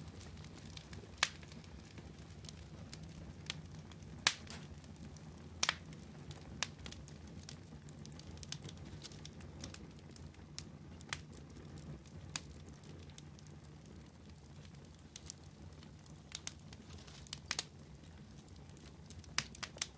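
Wood campfire crackling, with irregular sharp pops from the burning logs and a few louder snaps, over a low steady hum.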